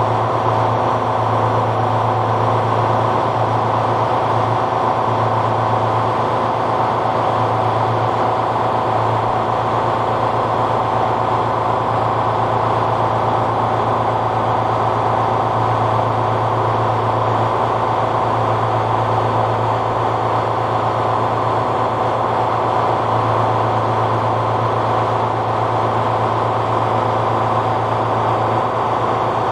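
Tuxing twin-cylinder high-pressure air (HPA) compressor running steadily under load, pumping air into a large air bottle. It is a constant loud mechanical drone with a strong low hum.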